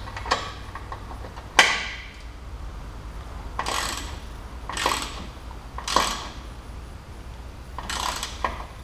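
Metal wrench tightening the fittings on a loader's SoftDrive control valve: light metallic clicks, one sharp clack about one and a half seconds in, then four short rasping strokes roughly a second apart.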